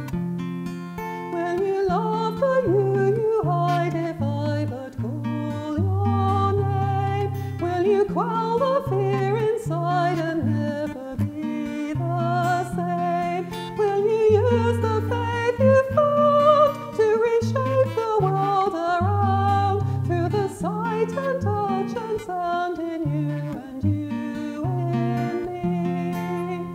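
A woman singing a hymn verse solo, accompanying herself on a strummed acoustic guitar.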